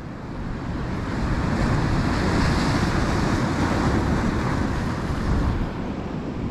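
Sea surf on a rocky shore: a wave breaking and washing, swelling over the first few seconds and then easing off, with wind rumbling on the microphone.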